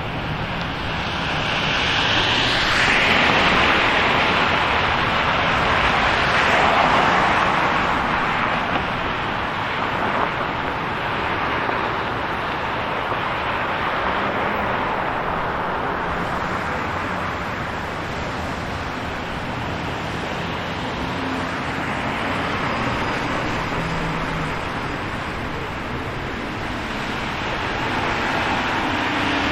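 City street traffic: cars passing with a steady tyre and engine noise that swells as vehicles go by, loudest a few seconds in and again near the end.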